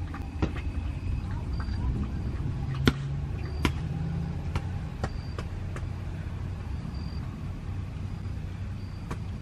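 Rain falling, with scattered louder drips ticking close by, over a low steady rumble.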